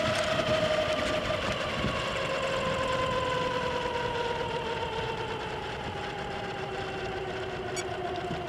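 Align T-Rex 700 RC helicopter's rotor head and drivetrain winding down on the ground, a whine that falls slowly and steadily in pitch as the spinning rotor loses speed.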